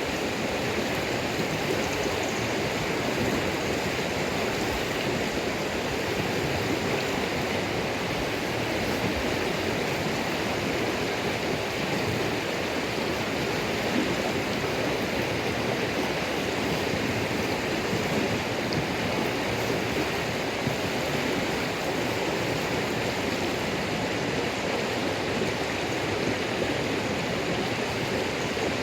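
Steady rushing noise like running water, even and unbroken throughout, with no distinct crackles standing out.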